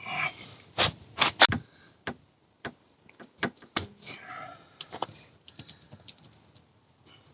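Irregular metallic clicks and taps of pliers on the head of a screw stuck in a car tyre tread, slipping as they fail to get a grip on it.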